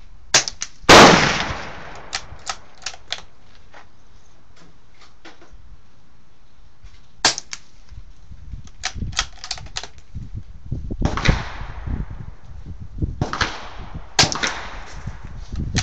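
Suppressed Marlin XT-22 bolt-action .22LR rifle firing CCI subsonic rounds through an Apex suppressor: sharp cracks about a second in, again near seven seconds and near fourteen seconds. Each is followed by a string of small metallic clicks, the bolt being worked.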